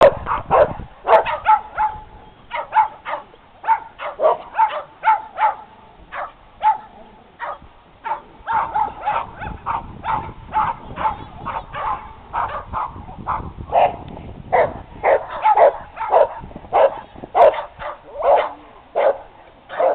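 A dog barking repeatedly and excitedly, short sharp barks at about two or three a second with brief pauses, while running an agility course.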